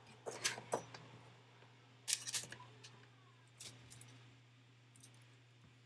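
Small clicks and clatters of parts and connectors being handled on an opened MacBook Pro, in four short groups, the loudest about two seconds in.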